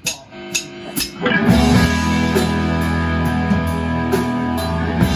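Rock band of two electric guitars, electric bass and drum kit playing live. After three evenly spaced sharp clicks, the whole band comes in together a little over a second in and keeps playing steadily.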